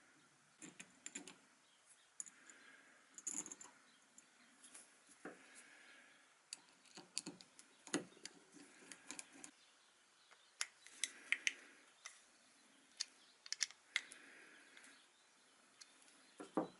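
Small hard objects clicking, tapping and clattering irregularly, like hand tools and small parts being handled on a workbench, with a few sharper knocks about halfway through.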